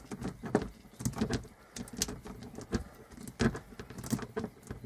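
Oily motorcycle drive chain being flexed back and forth by hand, its links clicking and rattling in irregular bursts as a stiff, partly seized link is worked loose.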